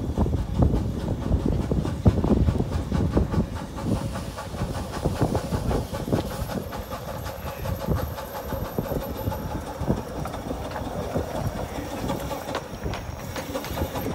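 Miniature-railway steam locomotive running along the track toward and past the listener with a rhythmic beat, with some steam hiss.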